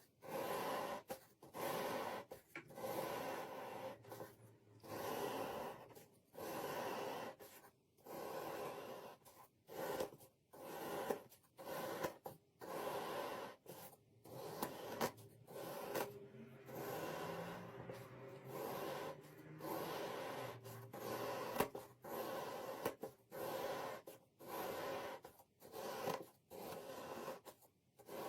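Kinetic sand being cut, a gritty scraping stroke about once a second with short pauses between.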